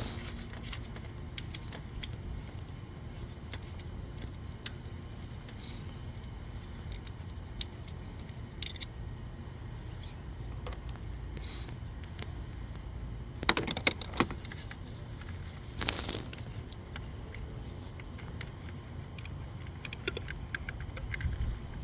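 Metal hand tools clicking and clinking on the bolts that hold the ignition coils on a 2015 Toyota RAV4 engine as they are undone. There are scattered light clicks, a short cluster of sharper clinks about two-thirds of the way in and another soon after, over a steady low rumble.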